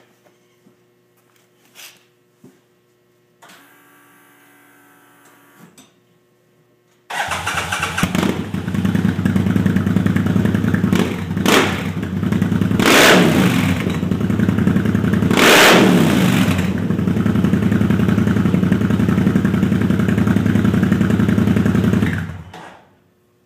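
John Deere Gator RSX850i's V-twin engine through a Big Gun aftermarket exhaust. After a few seconds of a faint whine, the engine starts suddenly and runs loudly at idle. It is revved twice, rising then falling in pitch each time, and is shut off near the end.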